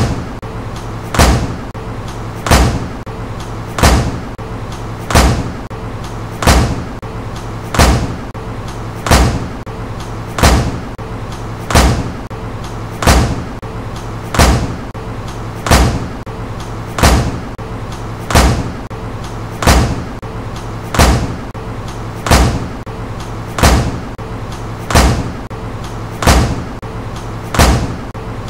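Medicine ball slammed onto a gym floor again and again, one sharp thud about every 1.3 seconds in an even rhythm, over a steady low hum.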